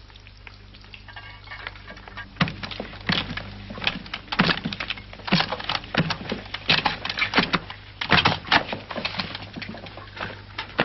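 Quick irregular knocks and clicks begin about two seconds in: footsteps on a wooden floor and the rattle of a carried breakfast tray with silver pots and crockery. A steady low hum runs beneath.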